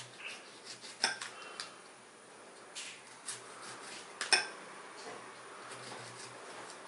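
Kitchen knife chopping a cucumber, the blade knocking on the cutting board in irregular sharp taps, two louder strikes about a second in and about four seconds in.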